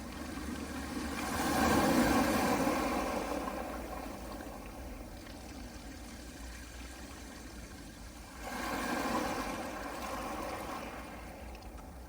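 Soft sea waves washing onto a pebble beach: a surge about two seconds in that slowly dies away, then a second, smaller wave about six seconds later.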